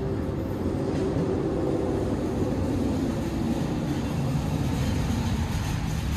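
SkyTrain Expo Line train running on the track: a steady rumble with a low hum that dips slightly in pitch partway through.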